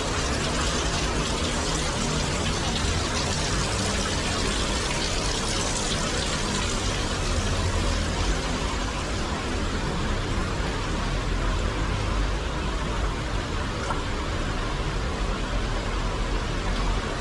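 Heavy rain and a rain-swollen stream rushing over rocks, making a steady, unbroken wash of water noise.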